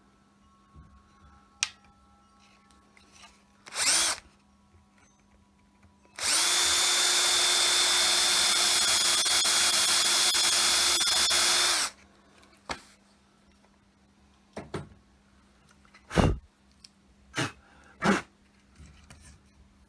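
Electric drill running at a steady speed for about six seconds, boring an angled hole into the wooden wine-crate board for a key peg. A brief burst of the drill comes a couple of seconds before, and several sharp knocks follow afterward.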